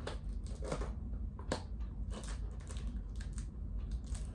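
Irregular small clicks and scrapes of packaging being worked open by hand, with one sharper click about a second and a half in.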